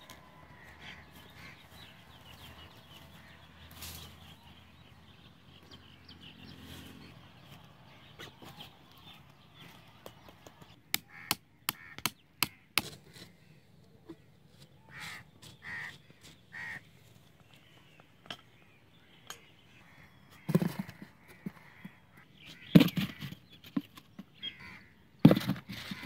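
Crows cawing in the background while the cardboard-and-wire trap parts are handled: a quick run of sharp clicks around the middle, then three loud knocks in the last third.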